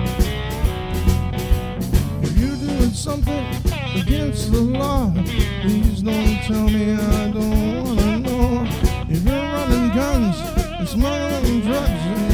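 Blues music: a shovel guitar with bass and percussion keeping a steady beat, and a melody line that glides up and down in pitch.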